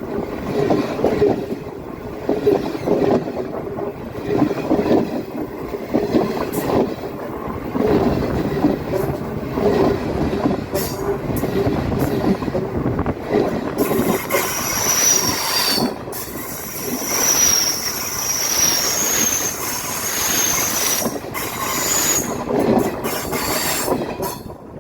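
Train rolling past, its wagons clattering and rumbling over the rails in a steady rhythm. A little past halfway a high, wavering wheel squeal joins in and carries on, on and off, to the end.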